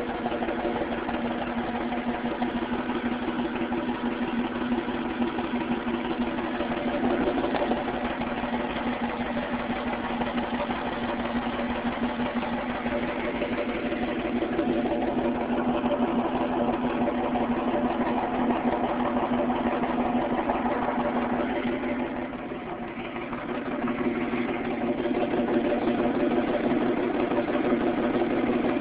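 1998 Ford Mustang's 3.8-litre V6 engine idling with a misfire. The sound is steady, apart from a brief dip in level about 22 seconds in.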